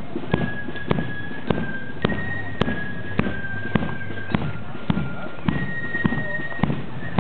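Marching band playing a march: a drum beats steadily, just under two beats a second, under long held high notes that step from one pitch to the next.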